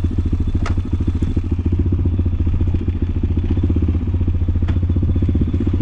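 Motorcycle engine running steadily, a rapid, even pulse that holds its pace without revving.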